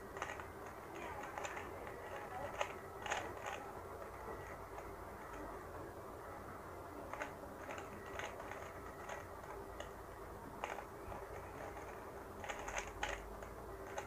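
Plastic 3x3 speed cube turned quickly by hand, its layers clicking and clacking in irregular runs. There are louder clusters of clicks about three seconds in and again near the end.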